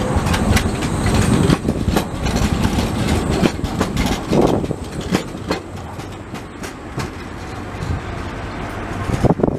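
A Škoda 15T low-floor tram passing close by, its wheels clattering and clicking over the rail joints and switches of a tram junction. The rumble is loudest in the first half and eases as the tram moves off after about five seconds, while scattered wheel clicks continue.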